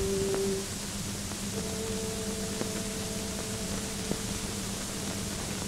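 Steady hiss and low hum of an early-1930s optical film soundtrack, with faint sustained musical notes over it: one held note at the start, then a soft two-note chord from about a second and a half in until about four seconds.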